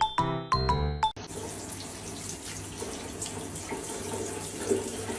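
A few quick pitched notes of music that cut off abruptly about a second in, followed by a steady hiss of running water.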